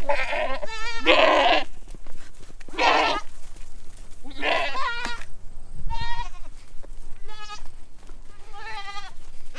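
Boer goats bleating repeatedly, about seven separate quavering calls.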